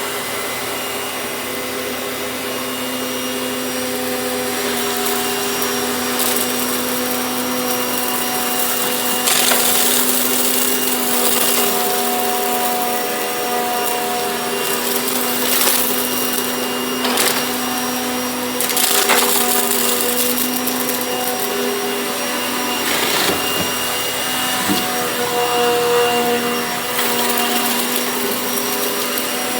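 A steady motor-driven machine running: a hum made of several tones over a noisy hiss, with short sharp crackles or scrapes now and then.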